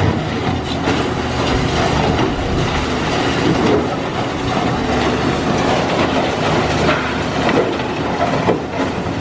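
Caterpillar high-reach demolition excavator running under load as its attachment bites into a concrete elevator shaft wall. The sound is a steady engine hum with continuous crunching and cracking of concrete.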